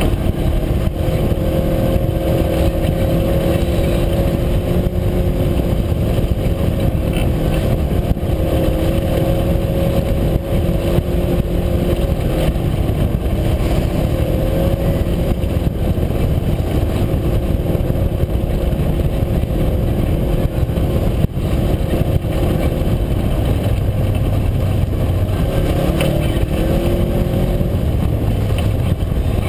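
UTV engine running at a steady pace under way, a continuous drone that wavers a little in pitch, over a constant low rumble from the ride.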